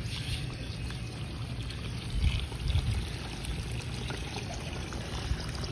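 Water poured from a plastic bucket into a metal feeding bowl, a steady splashing trickle, with a couple of low thumps about two to three seconds in.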